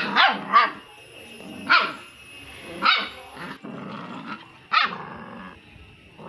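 A puppy barks in short, sharp yaps: a quick run of three at the start, then single barks about a second or more apart.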